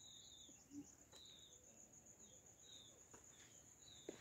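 Faint countryside ambience: insects keeping up a steady high-pitched drone, and a bird repeating a short chirp a little more than once a second.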